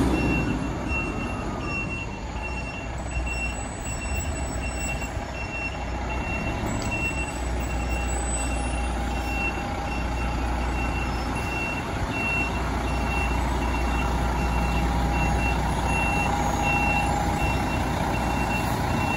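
Fire engine's diesel engine running low as the truck rolls slowly, with a high electronic warning beep repeating at an even rhythm.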